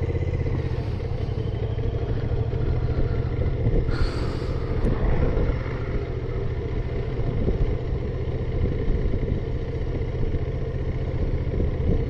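Motorcycle engine running steadily while riding, a continuous low rumble of fast firing pulses, with a brief hiss of noise about four seconds in.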